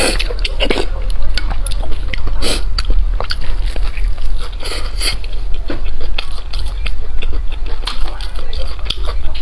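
Close-miked eating: biting and chewing with irregular crisp crackles and wet mouth clicks, over a steady low hum.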